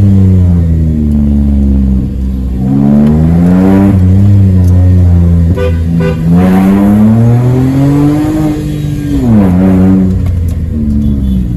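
Suzuki Wagon R's three-cylinder engine through a freshly fitted straight-pipe exhaust, heard from inside the cabin while driving. The engine note climbs as the car accelerates and falls back several times, with a sharp drop about nine seconds in, then runs steadier near the end.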